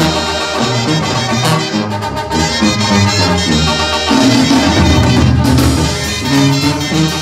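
Mexican banda music played live, with two sousaphones (banda tubas) blowing a moving bass line under the brass.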